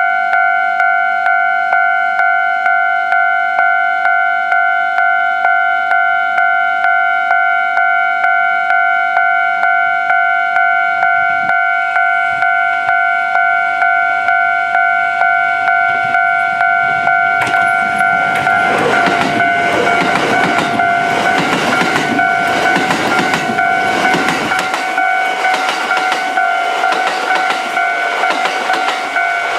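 Level-crossing warning bell dinging steadily in an even repeating rhythm throughout. About 18 seconds in, a coupled pair of Kintetsu 22000 series (ACE) limited-express electric trains passes for about seven seconds, its wheels clacking over the rail joints. The bell keeps on after the train has gone.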